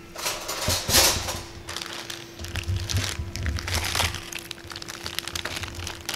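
Plastic zip-top bag crinkling as it is handled and tipped, with icy slush shifting and crackling inside, a few louder crackles along the way.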